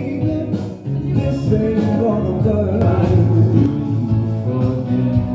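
Music with singing, as performed in a stage-show rehearsal.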